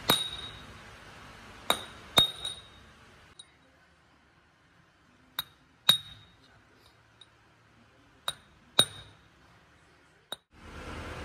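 Hammer blows on a steel marking punch held against machined steel truck kingpins, stamping marks into them: sharp metallic clinks with a short high ring, mostly in pairs about half a second apart.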